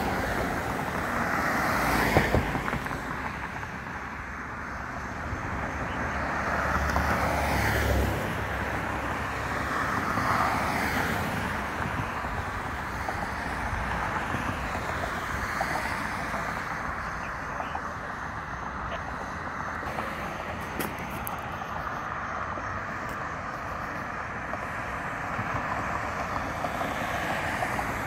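Vehicles passing on the road: engine and tyre noise, with a sharp loud sound about two seconds in and a deep engine rumble around seven seconds in as a heavy vehicle goes by, then quieter steady traffic noise.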